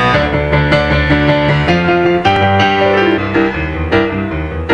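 Piano-led music track, many notes struck in quick succession.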